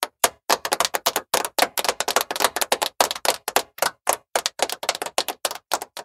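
A rapid, uneven run of sharp clicks or taps, several a second, thinning out near the end.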